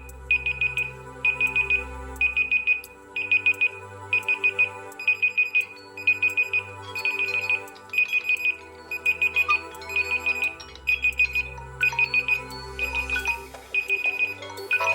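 Smartphone alarm ringtone: short clusters of rapid high-pitched beeps about twice a second over a synthesized bass and chord backing. Just before the end a different ringtone takes over.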